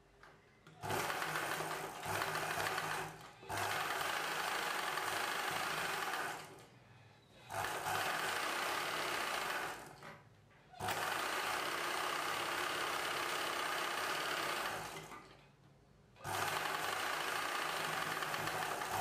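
Ralson straight-stitch sewing machine running as it sews a seam through blouse fabric. It goes in about five runs of a few seconds each, stopping briefly between them.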